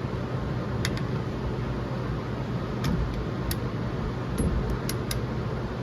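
A few short, sharp metallic clicks from hand tools as a caliper slide-pin bolt is torqued down, over a steady low hum.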